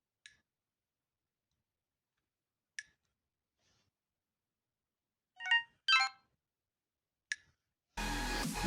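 Sony Ericsson T610 mobile phone sounding a short alert of two quick electronic tones about halfway through, set between a few faint single clicks.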